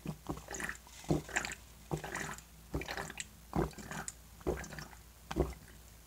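A person gulping down a can of passion fruit-guava nectar without stopping, close to the microphone, with a swallow about every second.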